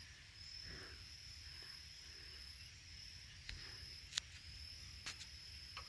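Faint, steady, high-pitched insect trill that breaks off briefly a few times, with three sharp clicks in the second half.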